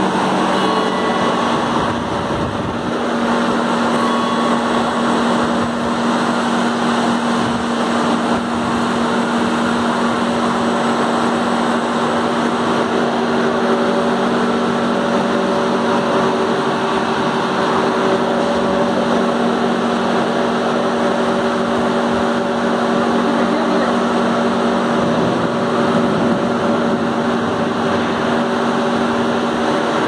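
Railway wheelset press machine running, a loud steady hum with a constant pitch, typical of its hydraulic pump unit under power.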